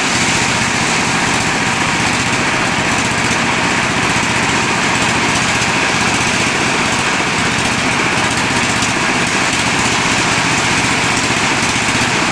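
Motorised corn sheller running steadily, a loud continuous machine noise that does not change.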